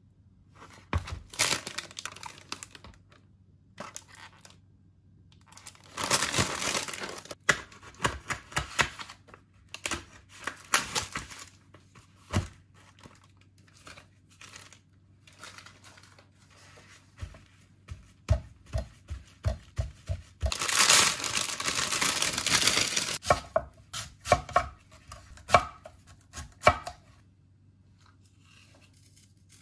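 Plastic film peeled off a meat tray and paper towels torn and crinkled, in two long stretches of rustling, with scattered taps and clicks. Between them, a run of knife thuds on a wooden cutting board.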